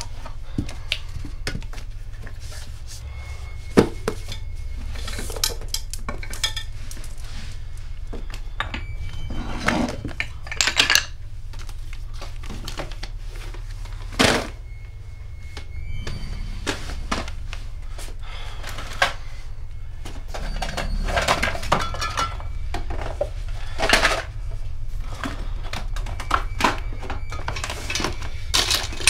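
Objects being rummaged through on shelves and in a plastic storage box: irregular knocks, clinks and rustling as things are picked up, shifted and set down, over a steady low hum.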